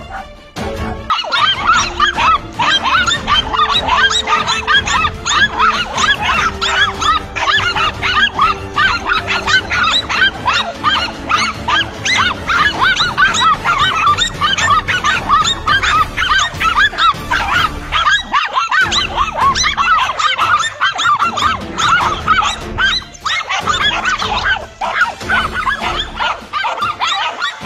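Several dogs barking and yapping excitedly in rapid, overlapping barks as they set on a monitor lizard.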